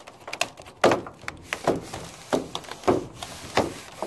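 A run of sharp knocks and scrapes, about one every half second, as a patch piece is handled and pressed into place over a hole in a shed's metal roof.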